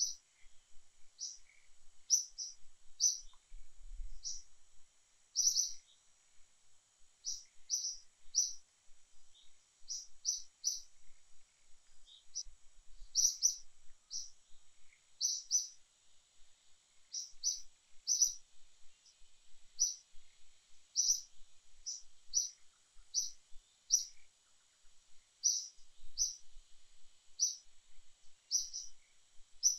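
Bird chirping: short, high chirps repeated about every second, often in quick twos and threes, over a faint steady high hiss.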